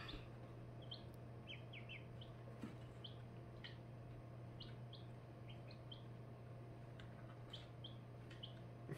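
Baby chicks and ducklings peeping softly: frequent short, high peeps at an irregular pace, over a steady low hum.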